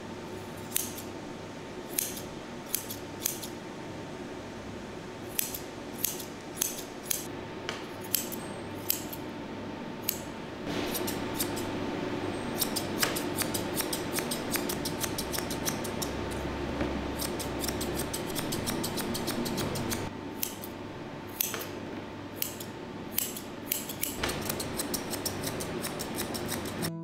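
Grooming scissors snipping through a Persian cat's long facial fur close up: sharp snips in irregular runs, some in quick series of several a second, over a steady faint hum.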